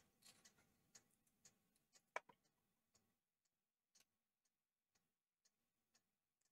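Near silence with faint, even ticking about once a second, and one sharper click a little after two seconds in.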